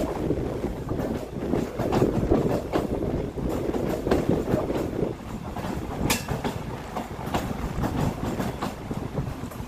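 MEMU electric multiple-unit train pulling into a station, heard from an open coach door: a steady rumble with wheels clattering over rail joints and points.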